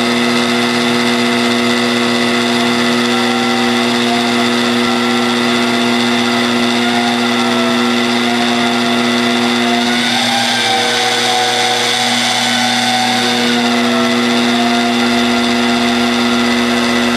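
Magnetic drill press running steadily, its electric motor drilling a hole through the steel of a tractor bucket, with cutting oil fed to the bit. The steady whine wavers slightly in pitch about ten seconds in, then settles again.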